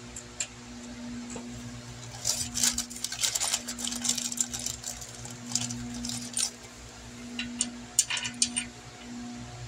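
Metal parts clinking and rattling in two short flurries, about two seconds in and again near the end, over a steady low hum.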